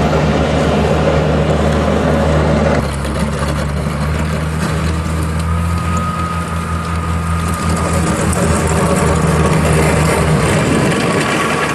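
Heavy engine of road-maintenance machinery running steadily, with a sudden change in the sound about three seconds in and a faint held whine in the middle.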